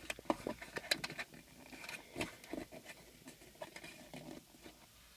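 Irregular light taps and crinkles as a notched disc cut from a placemat is pressed down into a car cup holder, thinning out about halfway through.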